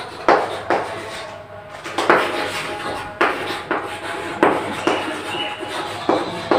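Chalk writing on a blackboard: a run of sharp taps, each followed by scratchy strokes, about every half second to a second as the letters go down.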